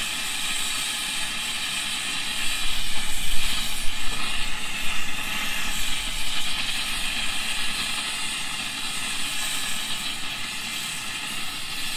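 Oxygen-propane torch burning with a steady hissing flame, adjusted to a neutral flame and played on a melting dish to heat sterling silver toward melting. It gets louder for a couple of seconds about three seconds in.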